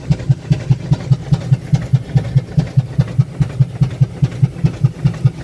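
Merryweather firefighting engine's steam engine running at a steady speed, an even rhythmic beat of about five strokes a second.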